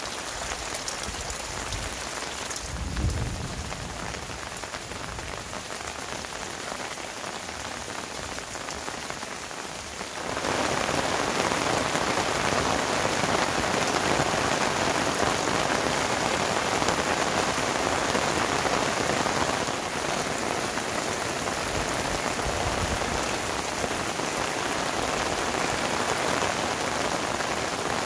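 Heavy rain falling steadily, a dense even hiss, with a brief low thump about three seconds in. The rain gets abruptly louder about ten seconds in and stays loud.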